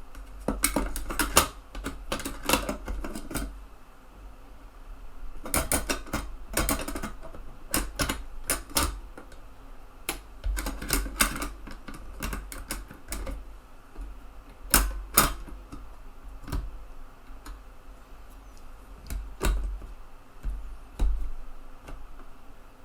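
Sharp clicks and snaps of a TEAC FD-235F 3.5-inch floppy drive's eject mechanism and carriage being worked by hand, in irregular clusters.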